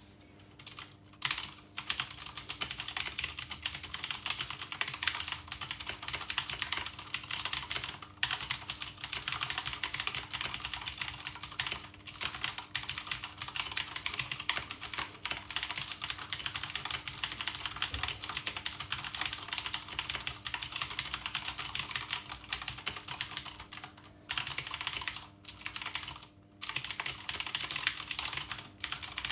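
Fast continuous typing on a HyperX Alloy FPS Pro mechanical keyboard with Cherry MX Blue switches, a dense run of sharp clicky keystrokes broken by a few short pauses.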